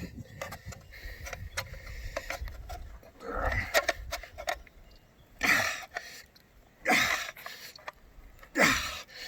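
A man's forceful, straining exhalations and grunts, four in a row about a second and a half apart, as he bends and rolls a frying pan with his bare hands. Small clicks and creaks come in the first few seconds.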